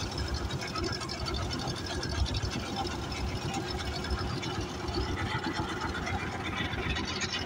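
A small engine running steadily with a fast, even rattle.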